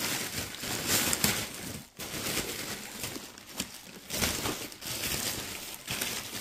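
Plastic parcel packaging crinkling and rustling as it is handled and opened, in irregular bursts with a brief pause about two seconds in.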